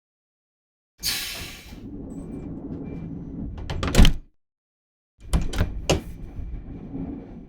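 Two slide transition sound effects, one after the other. The first opens with a bright hiss, settles into a steady low rolling rumble and ends in a loud hit about four seconds in. The second starts about a second later with a few sharp clacks over a shorter rumble.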